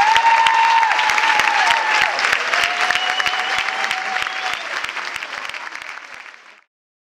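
Audience applauding and cheering, many hands clapping with drawn-out whoops over it, fading out near the end to silence.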